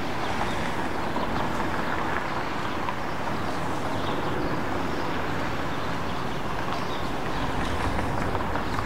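Steady city street ambience: an even wash of traffic noise with no single event standing out.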